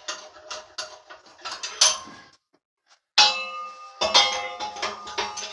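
Old bench vise being unwound and handled: a run of rapid metallic clicking, then after a brief break two loud metal clanks about three and four seconds in, each ringing on afterwards.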